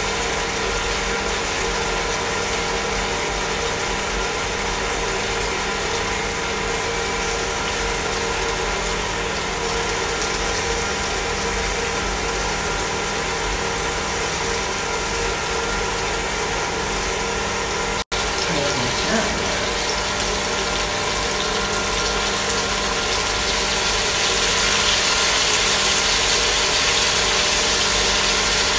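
Salmon steak and green beans frying in a pan on an induction cooker: a steady sizzle over the cooker's steady fan hum. The sizzle grows louder and brighter over the last few seconds, with the lid off the pan.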